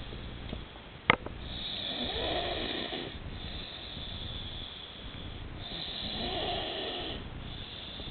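A sleeping woman snoring: two long snores about four seconds apart, with a single sharp click about a second in.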